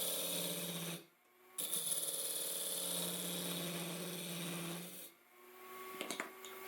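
A tool scraping against wood in two long passes, with a sudden break between them, followed by a few light clicks near the end.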